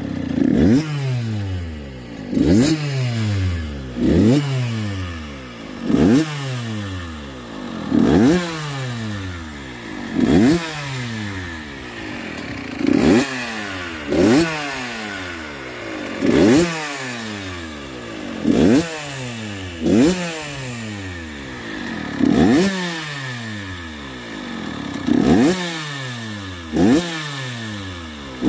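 Kawasaki KX85's 85 cc single-cylinder two-stroke engine, stationary, revved in quick throttle blips about every two seconds, each one rising sharply and falling back to idle.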